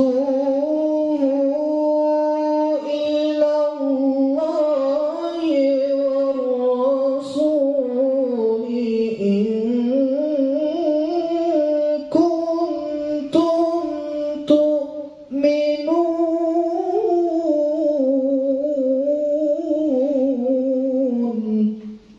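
A man's voice reciting the Quran in the melodic tilawah style into a microphone: long, ornamented held phrases with a few short breaks, rising in pitch around the middle and falling to a close near the end.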